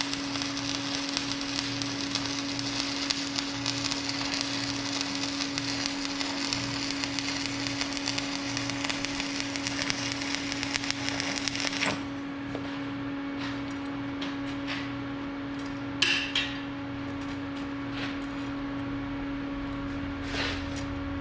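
Stick welding arc crackling steadily while a bead is laid on a steel bucket tooth, cutting off abruptly about twelve seconds in. After that a steady hum and a few sharp metallic knocks.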